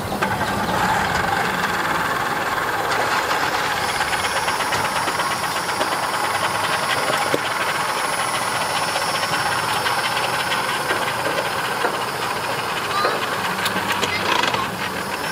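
An engine running steadily, with a hiss and a fast, even pulsing throughout.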